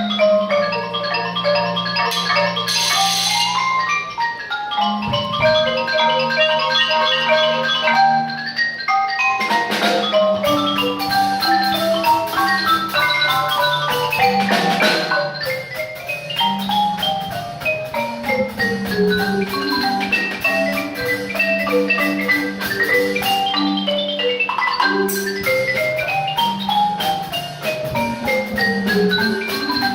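Live mallet-percussion music, led by marimba: quick runs of notes climb and fall in scales over held low notes.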